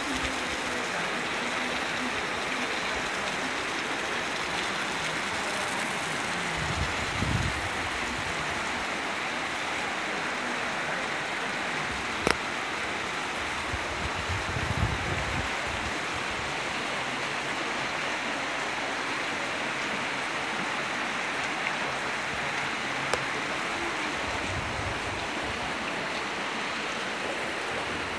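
Heavy rain pouring down in a steady, unbroken hiss, with a few low thumps and a sharp click about twelve seconds in.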